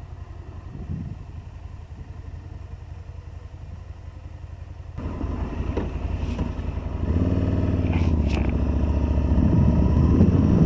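Motorcycle engine running as the bike rides along, heard from a camera mounted on the bike, with wind on the microphone getting louder toward the end. The first five seconds hold only a quiet low rumble, then the engine and wind noise come in suddenly.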